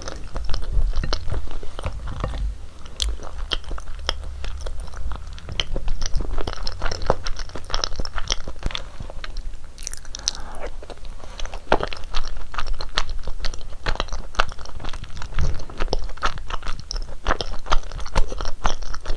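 Close-miked eating of rosé tteokbokki: chewy rice cakes in a thick sauce chewed steadily, with a dense run of wet mouth clicks and crackles.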